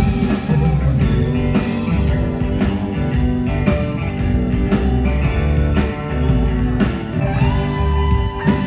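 A country band playing live, with electric guitar over a steady drum beat and singing.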